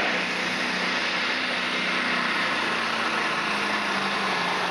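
Diesel super stock pulling tractor running hard under load as it drags the weight sled: a steady, dense engine sound whose note drops a little near the end.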